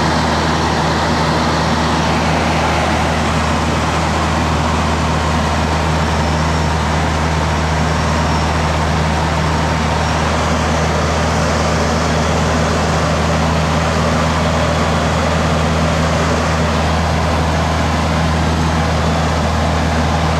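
Morane-Saulnier Rallye 880B light aircraft heard from inside the cabin in flight: its Continental O-200 four-cylinder engine and propeller droning steadily at an even power, with a broad rush of air over the cabin.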